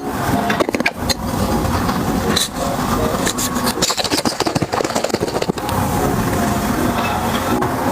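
Close-miked eating: loud, continuous crunching and chewing with many sharp cracks.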